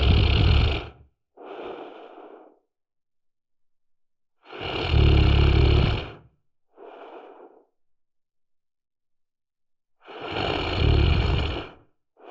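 A person snoring: three loud snores about five seconds apart, each followed by a shorter, quieter breath.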